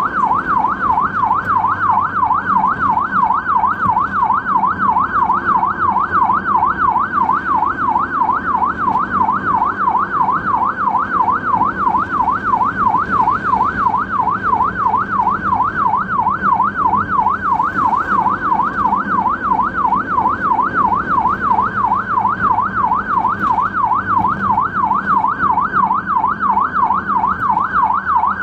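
Ambulance siren in a fast yelp, its tone sweeping up and down about three times a second, steady and unbroken throughout.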